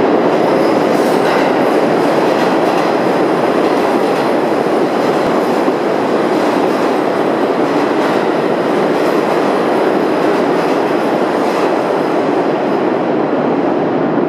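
R46 New York subway train running through the station at speed without stopping: a loud, steady rumble of steel wheels on rail with a few clicks from the rail joints. The hiss at the top end thins out near the end as it moves away.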